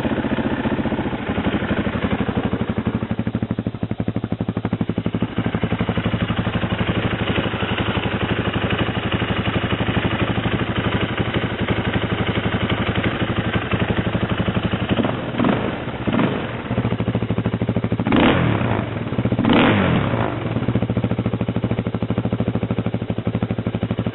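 KTM LC4 640 big single-cylinder four-stroke idling through a full Akrapovic titanium exhaust, with an even thumping beat. Past the midpoint it is blipped four times: two short revs, then two bigger ones that rise and fall back to idle.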